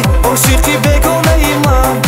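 Electronic dance remix of a pop song: a kick drum on every beat, about two a second, under synthesizer melody lines.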